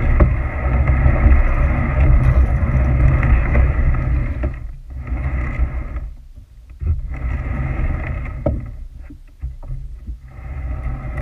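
Red Hobie kayak's plastic hull pushed off a rocky shore into the water, with a heavy low rumble on the camera microphone that drops away in patches.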